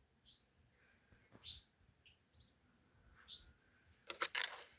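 Birds calling: three short, rising whistled notes about a second and a half apart, with a small trill between them. Near the end comes a brief burst of harsh, rapid clicks, the loudest sound here.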